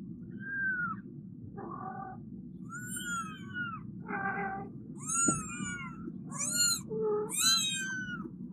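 A very young kitten mewing over and over: about seven thin, high cries, many falling in pitch, the later ones louder and shriller. A steady low hum runs underneath.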